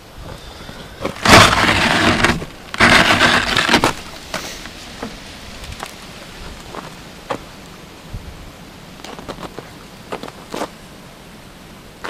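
Deep snow crunching and scraping as it is pushed through and walked on: two loud rushes about a second long, each ending by about four seconds in, then scattered soft crunches.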